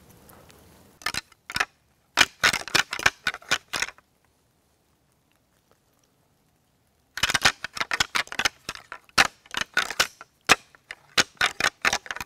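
A pair of deer antlers rattled together as rattling horns, clacking and grinding in two bouts of rapid clashes, about three seconds and then about five seconds long, with a pause of about three seconds between. This is rattling to imitate two bucks sparring and draw a buck in.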